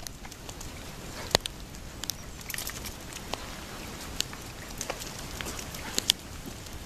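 Footsteps on wet pavement, heard as scattered light taps and clicks over a steady outdoor hiss.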